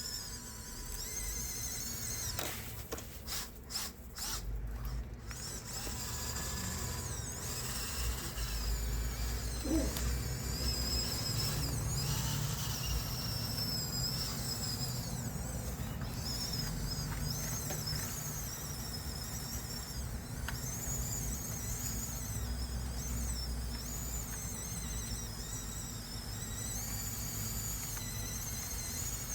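Small electric drive motors and gearboxes of a Huina 1554 RC bulldozer whining, the pitch wavering up and down as it drives, over a low rumble, with a run of sharp clicks about three seconds in.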